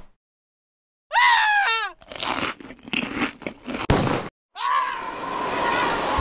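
Sound effects on an animation soundtrack: a click, then a short squealing tone that slides down in pitch in quick repeats, a run of crunching noises, and finally a held steady tone over a hiss.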